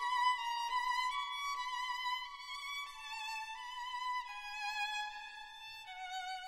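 Background music: a violin melody with vibrato, the notes stepping gradually lower.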